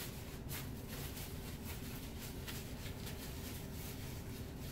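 Quiet room tone: a steady low hum and hiss, with a few faint soft ticks.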